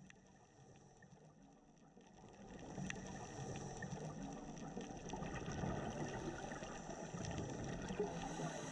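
Underwater ambient water noise picked up by the diving camera: faint at first, then swelling about two and a half seconds in to a steady low rush with a few faint clicks.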